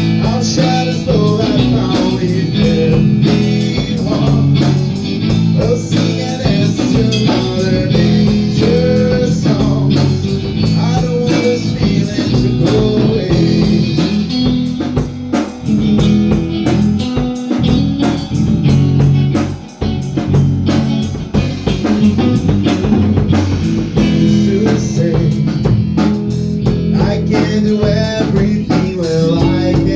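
A small band playing an instrumental passage together: guitar, bass guitar and drum kit.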